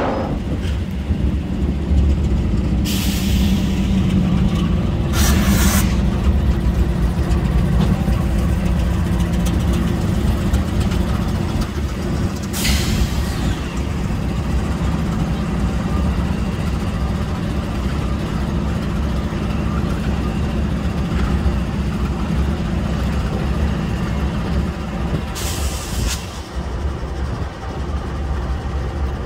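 Diesel locomotive engine running steadily at low revs, with several short hisses of air from the train's air brakes.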